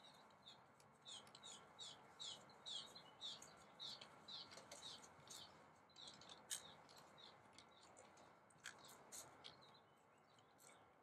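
A small songbird singing a run of short, high, slightly falling chirps, about two or three a second, which stops about halfway through. A few faint sharp clicks follow.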